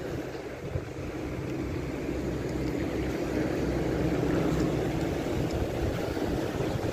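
Steady low rumble of wind buffeting the microphone over the sound of the sea, swelling a little midway.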